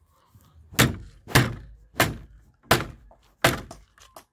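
A small adze (teslă) hammering a nail in weathered wooden boards: six sharp blows, roughly two-thirds of a second apart.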